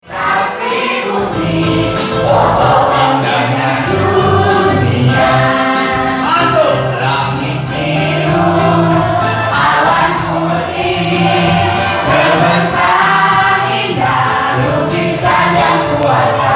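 A song sung over instrumental accompaniment.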